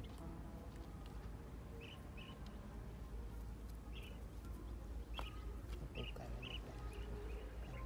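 Short high-pitched chirps from a small animal, often in quick pairs, recurring every half second to a second, over a steady low rumble. A single sharp click sounds about five seconds in.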